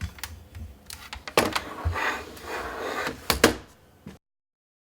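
Irregular hard knocks and clicks with rustling, as a keyboard and things on a desk are moved and handled. The sound cuts off suddenly a little after four seconds in.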